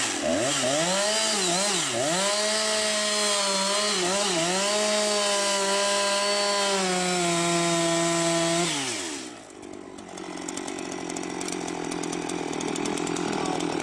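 Chainsaw revved to full throttle and cutting into a large tree trunk, its pitch dipping twice as the chain bogs down in the wood, then falling back to a quieter idle about nine seconds in.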